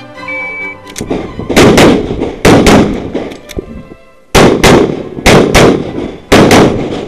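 A short electronic shot-timer start beep, then pistol shots from an ADC Master Elite in .40 S&W, fired in quick pairs. There are about five double taps, with a pause of about a second after the second pair.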